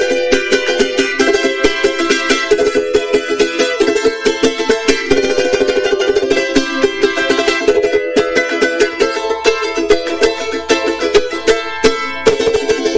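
Charango strummed steadily in an instrumental passage with no singing: a bright, high-pitched chordal strum from the small ten-string Andean lute.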